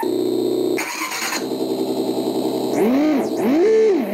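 Cheap RC car engine sound module playing a simulated engine through two small speakers. There is a short noisy burst about a second in, then a steady idle, then three quick revs that rise and fall in pitch near the end as the throttle control is blipped.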